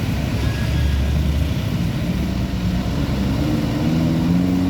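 Heavy truck engine running, its pitch rising over the last second or so as it accelerates.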